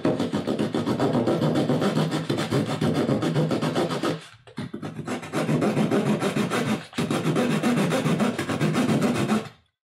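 Fine-toothed razor saw cutting across a wooden dowel with quick back-and-forth strokes, sawing a relief cut. The sawing stops for about half a second a little after four seconds in, breaks again briefly near seven seconds, and cuts off just before the end.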